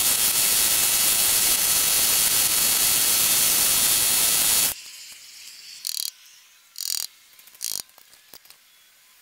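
A continuous mechanical ratcheting clatter for nearly five seconds that cuts off suddenly, then three short metallic clinks of pry tools against the cast iron milling machine head.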